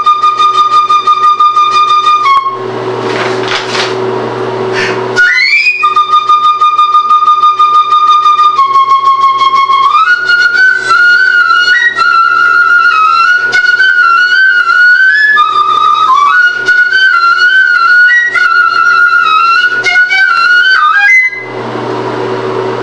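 Solo flute playing long held high notes, then a melody of quick wavering notes. The playing breaks off for about three seconds near the start and stops shortly before the end, over a low steady hum.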